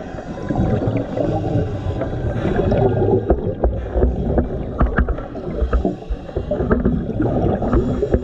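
Underwater recording of a scuba diver's breathing: regulator hiss and exhaled bubbles rumbling and gurgling past the camera, with scattered clicks. Music from an underwater speaker system plays in the background.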